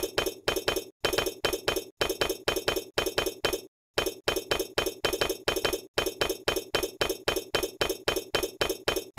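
Rapid run of light clinks, about four a second, in short bursts broken by brief pauses, with a longer break about four seconds in. It is a clinking sound effect for the miniature clay bricks being set in place one by one as the stop-motion build goes on.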